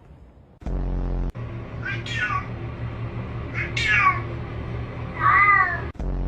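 A domestic cat meowing three times, about two seconds apart, each call sliding in pitch. Underneath, low steady background music starts abruptly about a second in.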